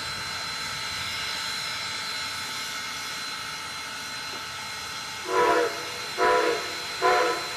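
Steam whistle of Strasburg Railroad's 4-8-0 steam locomotive No. 475 giving three short blasts near the end, over the steady hiss of the standing engine. Three short blasts is the standard signal that the train is about to back up.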